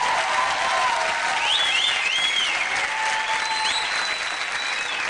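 Studio audience applauding steadily, with a few short, high calls that rise and fall over the clapping.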